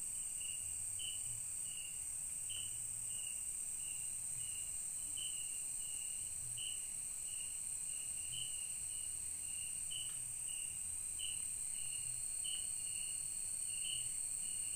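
Forest night ambience of insects: a steady high-pitched chorus with a short chirp repeating about every two-thirds of a second.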